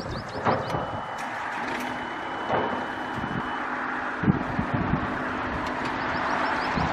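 Volvo EC35C mini excavator's four-cylinder diesel engine running steadily. A high steady tone sounds from about half a second in for some three seconds, and there are a few knocks about four seconds in.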